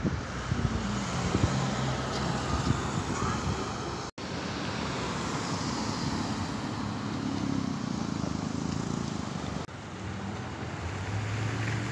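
Street traffic: cars driving past on the road with a steady tyre and engine hum, one swelling louder as it passes close about halfway through. The sound cuts out briefly twice.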